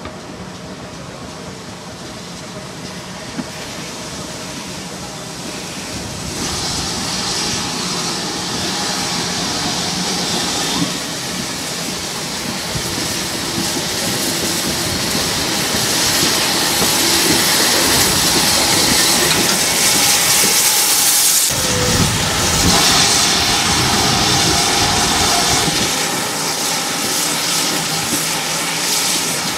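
GWR 5600-class 0-6-2 tank locomotive No. 5619 working its train in: a steady steam hiss over the running of wheels and coaches, growing louder as it comes close.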